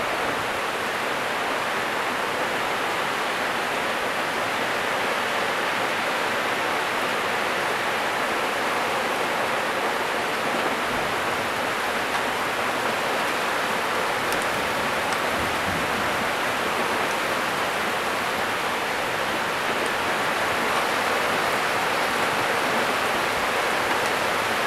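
Heavy rain pouring down in a steady, even hiss, with a few faint drop ticks.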